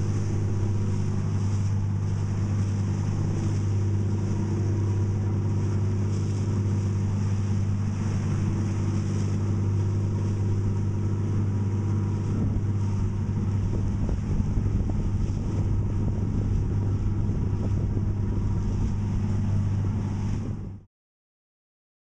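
Tour boat's engine running at a steady cruising drone, heard on board, with a steady hiss over it. It cuts off suddenly near the end.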